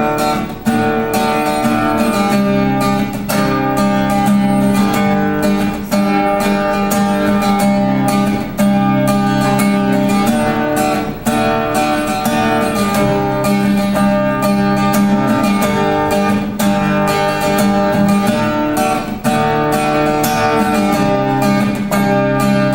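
Acoustic guitar strummed in a steady rhythm, chords changing every second or two.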